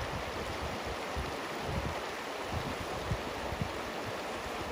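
River current rushing steadily, with uneven low rumbles underneath.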